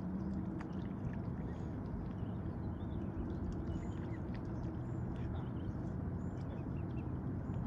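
Mute swans and their cygnets dabbling for seeds at the water's surface, soft bill-in-water splashing with faint, short high peeps from the cygnets, over a steady low background rumble.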